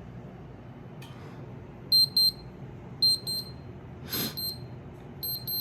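Digital thermometer beeping in quick pairs of short high beeps, a pair about every second, starting about two seconds in, signalling that the temperature reading is done. A short breathy noise comes about four seconds in.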